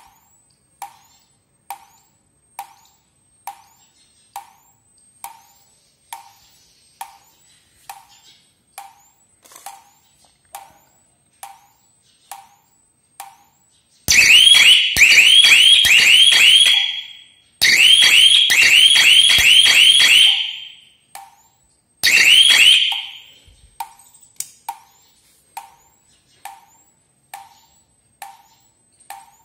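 Solar fence energizer (jhatka machine) firing its high-voltage pulses, a sharp tick a little more than once a second. About halfway through, a loud electronic alarm siren sounds in warbling rising sweeps, in two long stretches and a short third burst, while the ticks go on.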